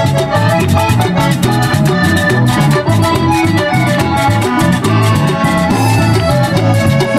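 Live cumbia band playing loudly in a mostly instrumental stretch, with a steady bass line, evenly paced percussion and sustained keyboard or accordion lines.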